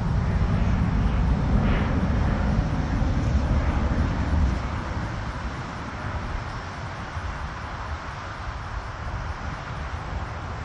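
Jet engine noise from a small jet climbing away after takeoff: a steady rumble that drops noticeably about halfway through as the jet recedes.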